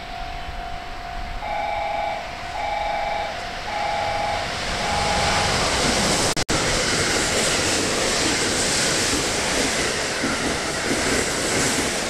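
A Thunderbird limited express electric train passing through the station at speed. Its rushing wheel and air noise builds about halfway through and stays loud. Before that, a steady tone breaks into four pulses of a two-tone beep.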